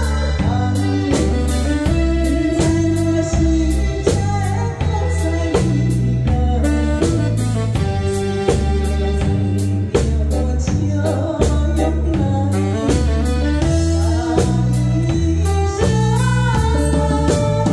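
A woman singing an enka-style ballad into a microphone over amplified accompaniment with drums and a steady bass beat.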